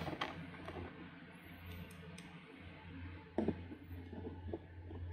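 Faint clicks and scrapes of a hand screwdriver driving T20 Torx screws back into the plastic front cover of a Husqvarna Automower charging station, with a sharper knock about three and a half seconds in.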